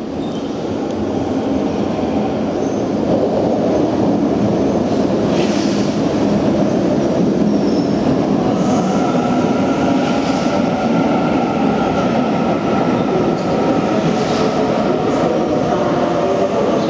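A Sydney Trains double-deck electric train coming into an underground station: a rumble that grows louder as it enters, with wheel clicks and brief wheel squeals. Then, about halfway through, a whine sets in that slowly falls in pitch as the train brakes along the platform.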